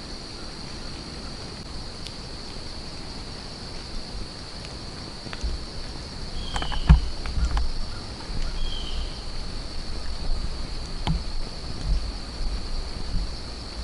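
Steady high-pitched insect chorus in woodland. From about halfway, wind gusts buffet the microphone with low rumbling, joined by a few sharp clicks and two short bird chirps.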